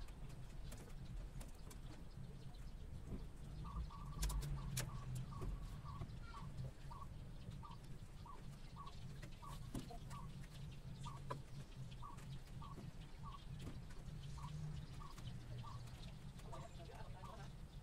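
Chickens clucking as they feed: short, even clucks about twice a second, beginning a few seconds in and bunching together near the end, with a couple of sharp clicks early on.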